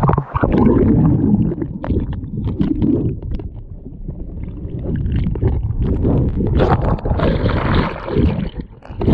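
Churning seawater and air bubbles heard underwater: a loud, muffled low rumble with gurgles and scattered sharp clicks, growing busier and brighter about seven seconds in as the wave surge fills with bubbles.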